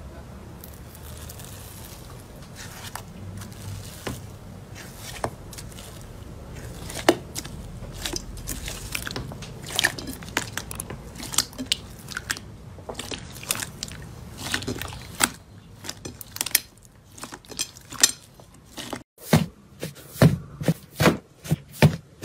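Hands pressing, squeezing and kneading slime: a dense stream of crackles and sharp pops over a low hiss. After a break about three-quarters through, separate louder pops come a few each second.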